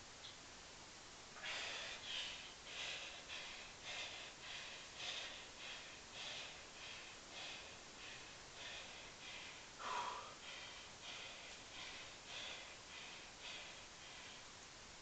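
A man breathing hard and fast from the exertion of repeated one-leg squats, short forceful breaths about one and a half a second after a quiet start. About ten seconds in, one breath comes out louder and throatier.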